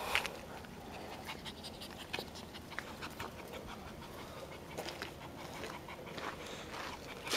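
Black-and-tan Shiba Inu puppy panting softly, with faint scattered clicks.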